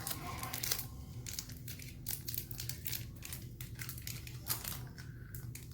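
Plastic wrapper of a small Pokémon card pack crinkling and crackling in a child's hands as it is opened, with an irregular run of sharp crackles.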